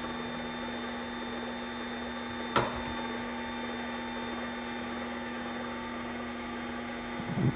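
AICOOK slow cold-press juicer's motor running with a steady, quiet hum, started to begin juicing celery. A single sharp click about two and a half seconds in, and a few soft knocks near the end.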